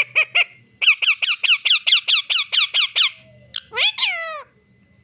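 Pet parrot calling in a rapid series of short, high, squeaky chirps, about six a second, then two longer calls that slide down in pitch near the end.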